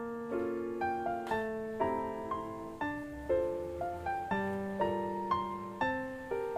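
Soft background piano music, single notes and chords struck about twice a second, each fading before the next.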